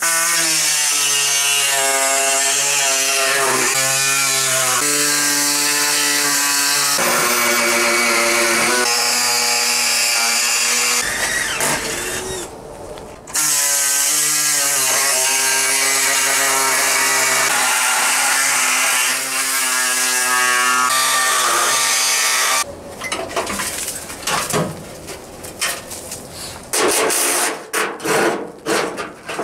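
A power tool runs loud and steady, its pitch shifting as it works. It stops for a couple of seconds about eleven seconds in, then starts again. Near the end it gives way to a stretch of irregular ratcheting clicks and rattles.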